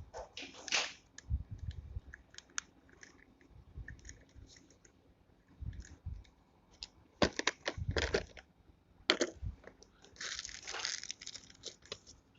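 Small plastic clicks and knocks from handling a beard trimmer and its snap-on head and guards, with a quick cluster of sharp clicks about seven to nine seconds in and a brief rustle shortly after.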